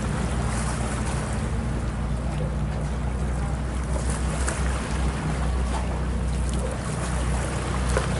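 Boat engine running at a steady low drone, with an even rushing noise of wind and water over it.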